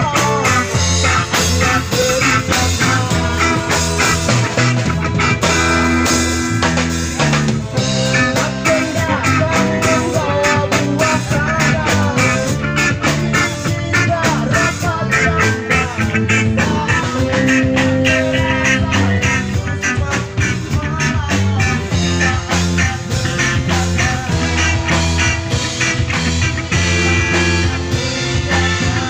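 Live rock band playing through amplifiers: drum kit, electric guitars and bass guitar, with a singer on a microphone.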